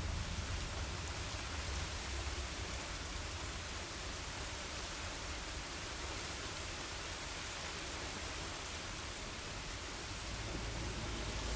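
Steady rain falling, an even hiss with no single drops standing out. A low thunder rumble trails off at the start, and another begins to build near the end.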